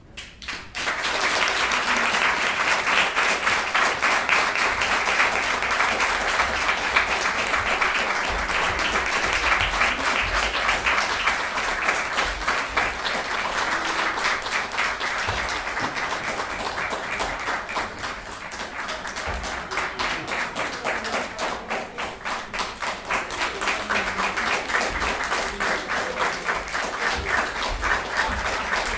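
Audience applauding, starting suddenly about a second in and carrying on steadily, easing slightly midway before picking up again.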